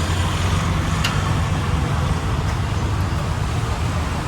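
Street traffic noise with a steady low engine hum, and a single sharp click about a second in.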